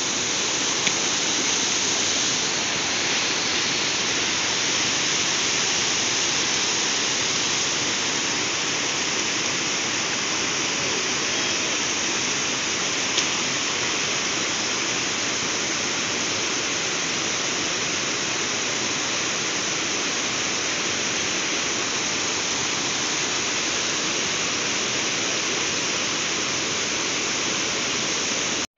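Water pouring over a low concrete weir and churning in the foamy pool below: a steady, even rush.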